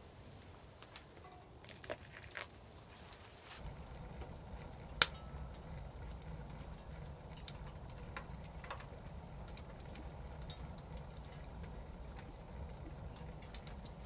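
Wood fire burning in a wood-burning tent stove: scattered crackles and pops, with one loud sharp snap about five seconds in. A steady low rumble of the burning fire comes in about three and a half seconds in.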